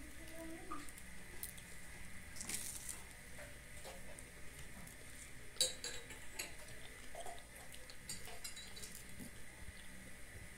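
Light, scattered clinks of dishes, pot and cutlery being handled at a kitchen counter, with a couple of sharper clinks about halfway through.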